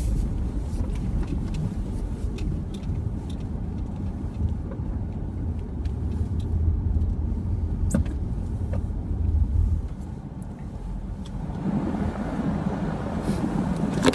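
Car running and driving slowly on snow, heard from inside the cabin: a steady low rumble with scattered faint clicks, growing fuller in tone about eleven seconds in.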